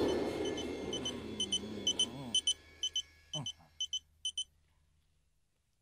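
A small electronic device's call alert beeping in short high double beeps, about two pairs a second, stopping a little after four seconds in. A low rumble fades out over the first two seconds, and a person groans faintly in between the beeps.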